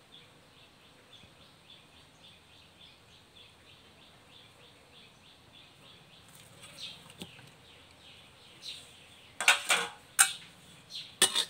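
Curry paste going into a metal wok of heating coconut cream, with a few loud, sharp scraping and clattering noises in two clusters about a second apart near the end. Before that there is only a faint, high, regular chirping, about four a second.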